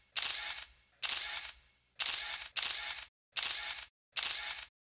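Camera shutter sounds, six separate bursts of hiss about half a second long, each starting sharply and fading, with short silences between.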